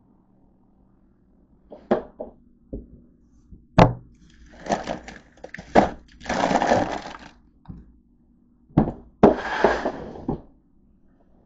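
A few sharp knocks and clacks, then bursts of crinkly crackling as a plastic bag and snack wrappers are handled in a plastic bin.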